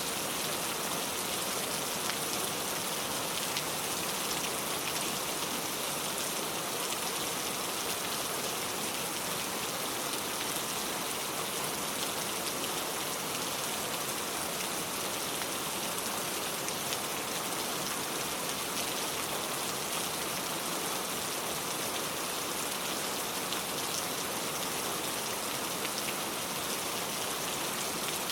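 Steady rain falling: an even hiss with faint ticks of individual drops scattered through it.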